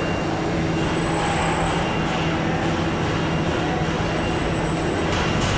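Steady mechanical noise of an automated assembly line, with a constant hum under it.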